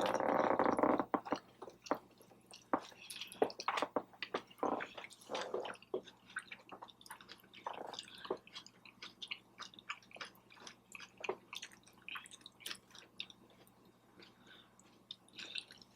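A person chewing food close to the microphone in irregular bites, with frequent soft mouth clicks and smacks.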